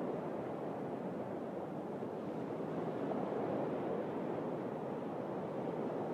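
Sea waves washing on a shore: a steady, low wash without distinct breakers.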